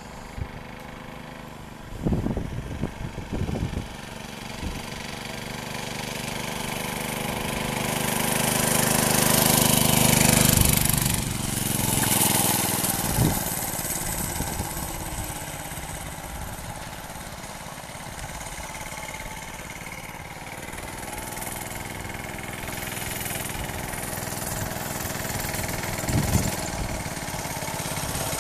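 Homemade mini bike's 5 hp gas engine running as the bike rides past. The engine grows louder to a peak about ten seconds in and drops in pitch as it goes by. It then fades into the distance and grows louder again near the end as the bike comes back.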